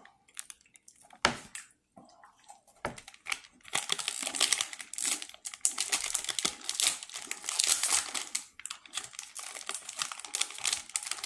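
Plastic shortbread cookie wrapper crinkling as it is handled, with a sharp crackle about a second in and dense, continuous crinkling from about four seconds in.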